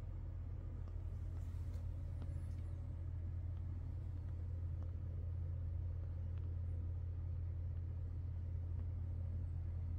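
A steady low hum, with a few faint ticks.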